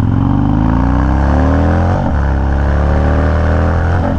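Harley-Davidson Dyna Super Glide's V-twin engine accelerating hard. Its note climbs, drops sharply at an upshift about two seconds in, and climbs again to a second shift near the end.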